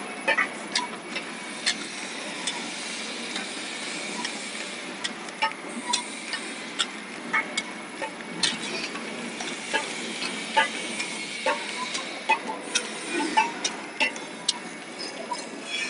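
Horizontal flow-wrap (pillow) packing machine running: a steady mechanical hum with a faint thin whine, and frequent sharp clicks at an uneven pace of roughly one to two a second.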